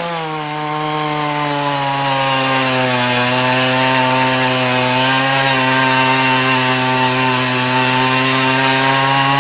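Earthquake E43 one-man post-hole auger's 43cc two-stroke engine running under load as the bit bores into the ground. Its pitch sags slightly in the first couple of seconds, then holds steady as it works through hard clay with roots in it.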